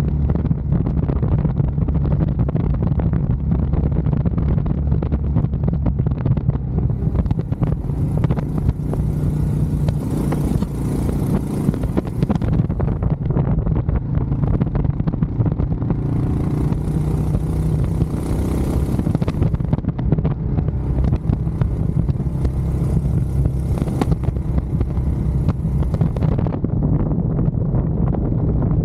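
Royal Enfield Scram 411's single-cylinder engine running steadily at cruising speed on the road. Wind rushes over the microphone and swells up in three stretches.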